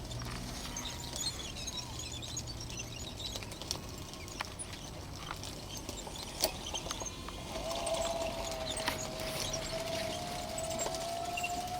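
Scattered bird chirps over outdoor background noise. About two-thirds of the way in, a steady, slightly wavering whine starts and holds; this is the electric drive of the RC bulldozer running.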